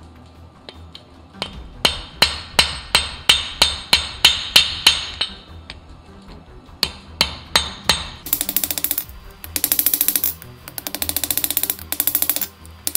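Hand hammer striking a red-hot mild-steel bar on an anvil, forging down a twisted section: a run of about a dozen sharp ringing blows at roughly three a second, then four more a little later. From about eight seconds in, a fast rasping sound follows in bursts.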